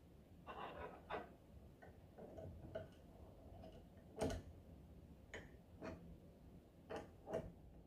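Faint small metallic clicks and clinks, about eight in all, the loudest about four seconds in. They come from a steel earthing bridge being fitted onto the bolt of a pipe pull-ring clamp and an open-end wrench being set on its nut.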